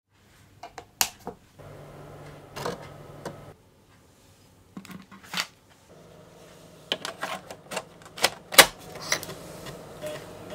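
Amiga 1200 floppy drive working: a low steady hum of the drive motor under irregular clicks and clacks from the heads stepping, one louder knock near the end.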